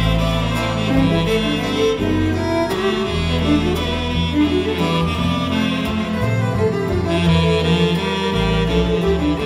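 Instrumental break played by a small live ensemble between sung verses: a melody moving over sustained bass notes, with no singing.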